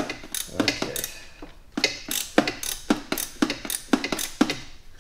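Hand ratchet wrench clicking in uneven strokes as a 13 mm bolt is run down at the back of the cylinder head.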